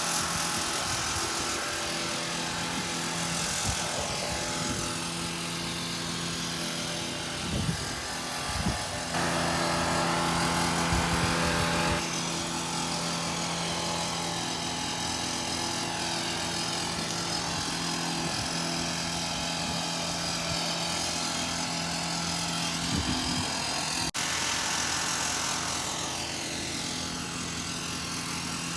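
A small engine running steadily at constant speed, with a machine hum and rushing noise; it grows a little louder for a few seconds around the middle.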